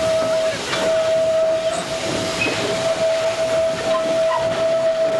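Steam train running, heard from an open passenger car: a rushing hiss with one steady high tone held almost throughout, broken only briefly about half a second in.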